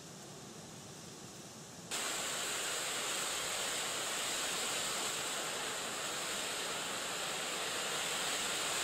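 Strong wind blowing over open lake water, a steady rushing hiss that gets louder about two seconds in.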